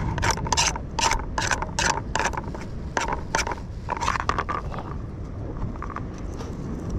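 A serrated knife scraping and cutting a strip of fish on a plastic cutting board: a quick run of rasping strokes, about three a second, thinning out after about three and a half seconds.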